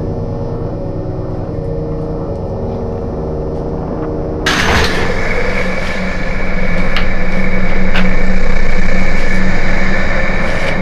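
Horror-film soundtrack: a low rumbling drone under held chord notes that shift every second or so, then a sudden loud burst of harsh noise about four and a half seconds in that carries on as a steady droning roar.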